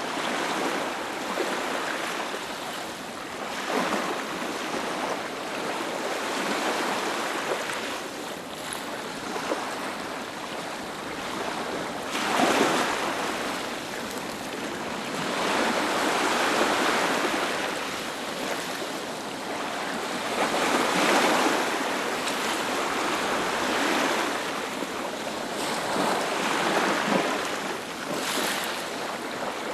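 Ocean waves breaking and washing up a beach, a steady hiss of surf that swells with each wave every few seconds.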